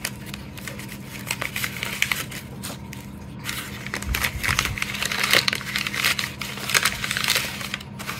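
Gift packaging being unwrapped by hand: irregular crinkling and crackling, busier from about four seconds in.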